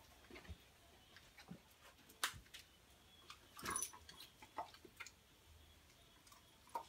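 Quiet room with scattered faint taps and clicks as a Dutch Shepherd moves about on a tile floor and around a rubber bowl while being hand-fed treats.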